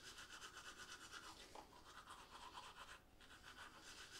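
Toothbrush scrubbing teeth in quick, rhythmic back-and-forth strokes, about six a second, with a brief pause about three seconds in.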